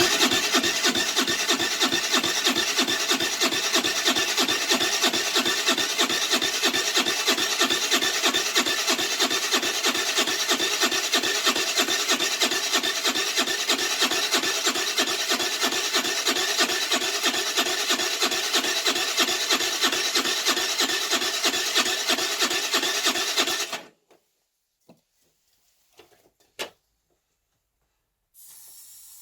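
Electric starter cranking a 2008 Baotian Tanco's 50cc four-stroke engine, an even, rhythmic churning that goes on for about twenty-four seconds without the engine firing, then stops suddenly. The owner blames a flooded, fouled carburettor that keeps wetting the spark plug.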